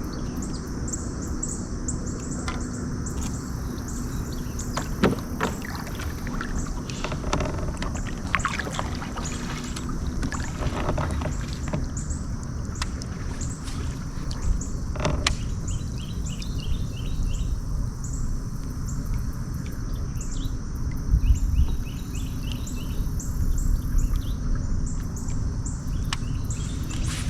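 Creekside outdoor ambience: a steady low rumble of water or wind noise, birds chirping in short repeated phrases, and a steady high insect buzz. A few sharp knocks or clicks stand out.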